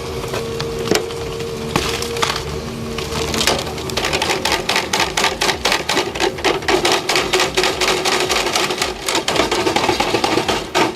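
A machine running with a steady hum and rapid clattering knocks, which become dense and regular about four seconds in.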